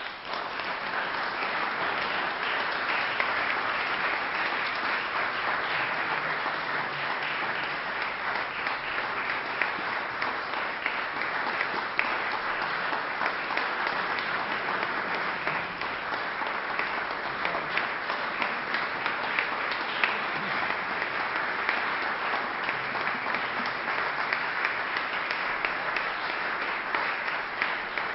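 Audience applauding steadily, many hands clapping at once, rising in right at the start after a hush.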